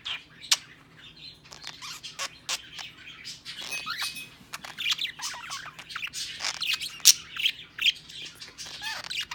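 Budgerigar chattering with rapid chirps and warbles, broken by many sharp clicks and smacks: the budgie's mimicked kissing sounds. The loudest smack comes about seven seconds in.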